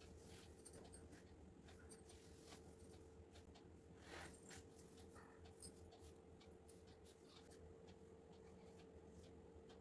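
Faint rustling and brushing of cotton fabric being smoothed flat by hands on a tile floor, with a few soft clicks and a slightly louder brush about four seconds in, over a faint steady hum.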